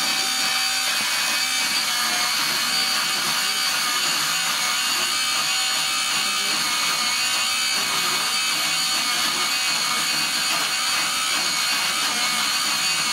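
Electric pencil sharpener running steadily with a grinding whir as a coloured pencil is held pushed into it and shaved to a point.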